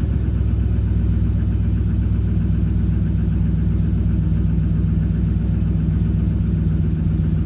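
Engine idling steadily with the cylinder 7 fuel injector freshly replaced, run to check whether its misfire is cured.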